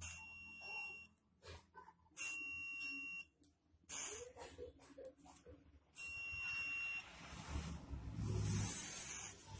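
An electronic buzzer beeps three times, each a steady high beep about a second long: at the start, about two seconds in, and about six seconds in. Small clicks and handling knocks come between the beeps, and a rushing noise rises near the end.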